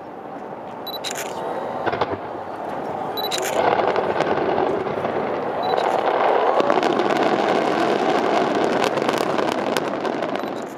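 A fireworks display barrage: separate sharp shell reports in the first few seconds, building about three and a half seconds in into a dense, continuous crackle of many bursts, which falls away just before the end.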